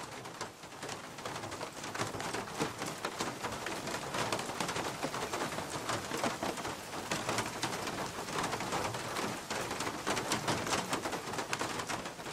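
Steady heavy rain: a dense patter of drops, with many fine ticks over a constant hiss.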